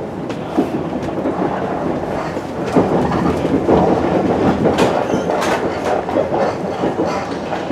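Running noise heard inside a 700 series Shinkansen car: a steady rumble from the wheels and running gear, broken by several sharp knocks as the wheels clatter over the track.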